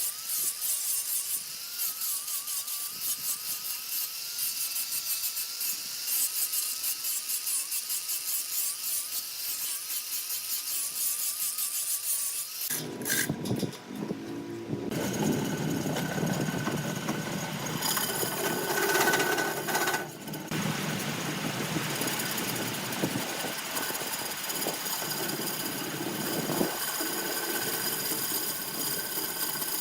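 Power tools working wood. For the first dozen seconds there is a high, fast buzzing with a slightly wavering whine; after a sudden change about thirteen seconds in, a fuller, lower machine sound with steady tones takes over.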